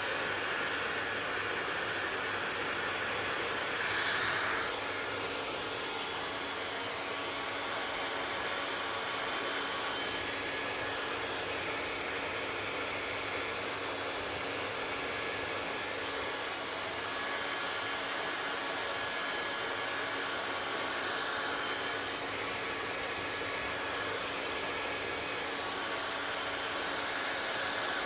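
Hair dryer running steadily: an even rush of blown air with faint steady tones in it, briefly a little louder about four seconds in.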